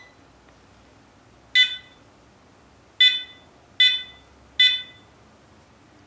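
Electric wheelchair joystick controller's buzzer beeping four times: one short beep, then three more in quick succession. Each beep starts sharply and fades away.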